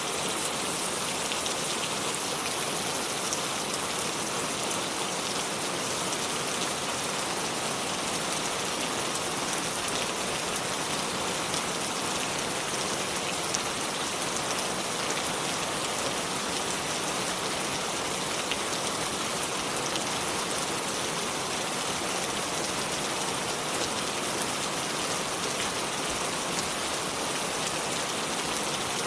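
Steady, even rush of flowing water, a constant hiss with fine scattered ticks and no change in level.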